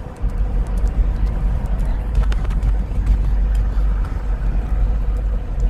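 Steady low rumble with faint, scattered clicks over it.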